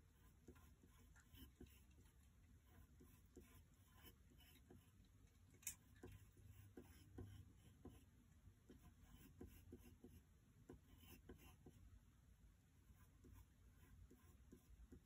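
Faint scratching of a pencil sketching on paper: many short, light strokes, with one sharper click about five and a half seconds in.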